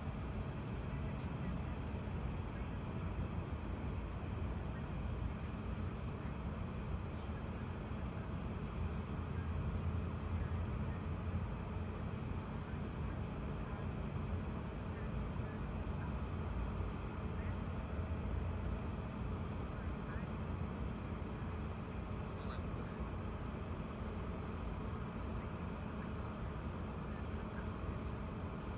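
Steady chorus of crickets or similar insects, an unbroken high-pitched trill, over a constant low rumble.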